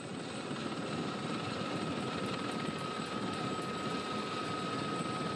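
A steady fluttering engine drone from the camera vehicles of a live bike-race broadcast, with a faint steady high tone in it.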